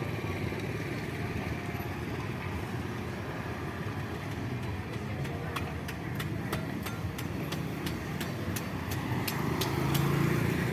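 Busy street ambience: steady traffic noise with indistinct voices. About halfway through comes a run of sharp, irregular clicks, and near the end a vehicle passes close and louder.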